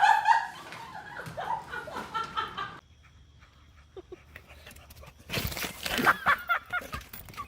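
People laughing, with a quiet gap in the middle and louder laughing and voices again near the end.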